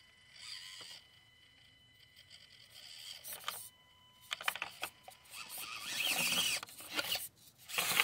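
Axial SCX24 1/24-scale crawler's small brushed electric motor and gears whirring in several short bursts as it is driven up a rock crack, tires scrabbling on the rock; near the end a clatter as the truck tips over backward.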